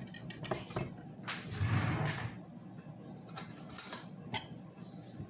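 Kitchen handling noises as a wooden board and cutlery are moved about on a counter: a few light knocks and clicks, with a longer sliding, scraping sound about two seconds in.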